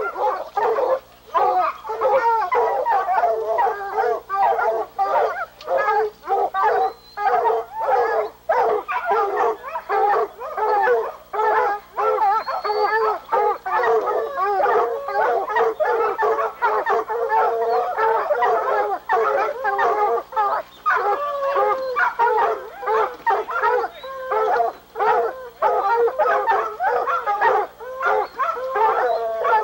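A pack of bear hounds barking and baying nonstop, several voices overlapping.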